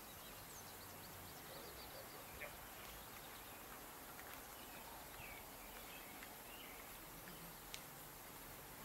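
Near silence: faint outdoor background hiss with scattered faint high chirps and a couple of soft clicks.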